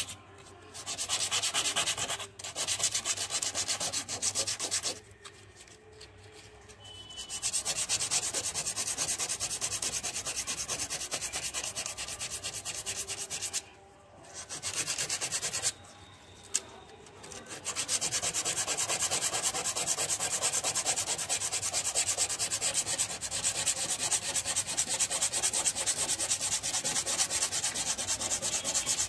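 120-grit sandpaper scraping back and forth over hardened body filler on a car panel, in fast, even strokes, with a few short pauses.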